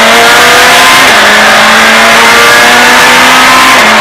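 Citroën Saxo Group A rally car's engine at full throttle, heard from inside the cabin. Its pitch climbs steadily and drops back twice, about a second in and near the end, as it is shifted up through the gears, over loud road and wind noise.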